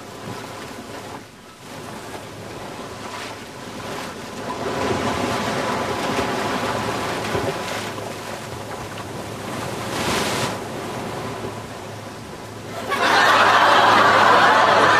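Sea surf washing onto a shingle beach: a steady hiss that swells and falls. About thirteen seconds in it turns much louder and busier.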